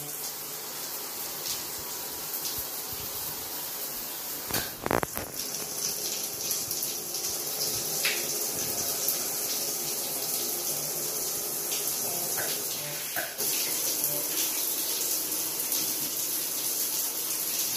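Water spraying from a shower head and splashing onto a membrane-lined wall and into a plugged shower pan, filling it for a leak test. It is a steady hiss that gets stronger about five seconds in and again near the end, with one sharp knock about five seconds in.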